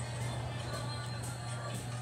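Quiet background music over a steady low hum.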